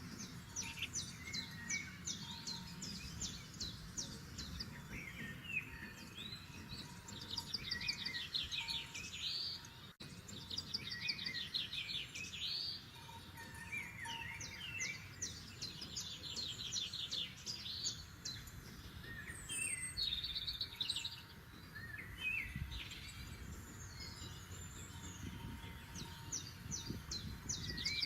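Several forest songbirds singing: repeated rapid trills and chirping phrases, one after another, over a steady low background noise.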